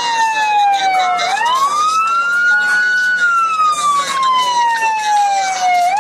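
Emergency-vehicle siren on a slow wail. The pitch falls, sweeps up about a second in, holds, then falls slowly over the next few seconds before starting to rise again near the end.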